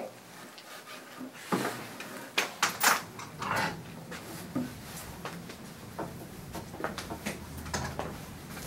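Several short knocks and clatters, most of them in the first half, with a low hum that comes in about three seconds in.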